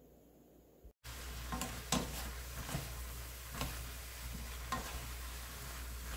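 Squid, bean sprouts and vegetables in sauce sizzling in a frying pan. From about a second in, a spatula stirs and tosses them, with about six short scrapes and knocks against the pan.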